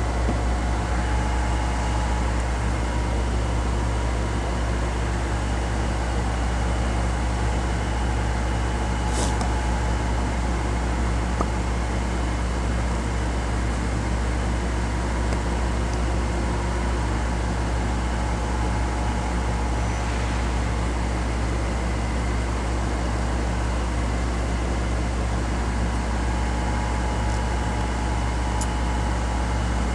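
Steady low droning hum of a running electric machine, with a faint steady whine above it. A few faint small clicks come through, about a third of the way in, two-thirds of the way in and near the end.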